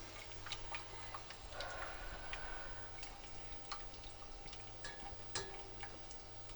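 Scattered light clicks and clinks of kitchen utensils and dishes, over a faint steady low hum.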